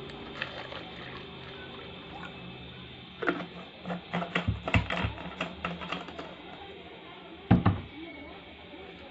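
Light plastic clicks and knocks as a plastic water bottle is capped and handled, for about three seconds, then one heavier thump near the end as the bottle is set down.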